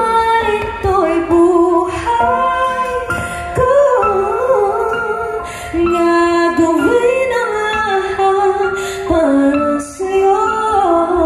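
Music: a song with a woman singing a gliding melody over a steady instrumental backing.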